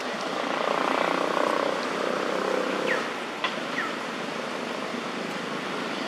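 Steady outdoor rushing noise that swells for the first three seconds, with a sharp click and a few brief, high, falling chirps around the middle.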